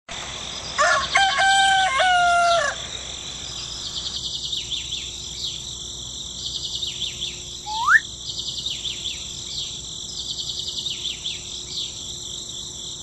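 A rooster crows once, about a second in, followed by small birds chirping over and over, with one rising call near the middle.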